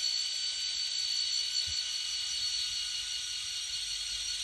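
Motor and drive of an N scale EMD SD40T-2 model locomotive running: a steady, high-pitched whine with a hiss, holding even throughout.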